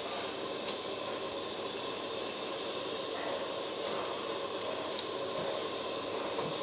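Steady hiss of a large pot of soup cooking over a gas burner, with a few faint clicks as meatballs are dropped in.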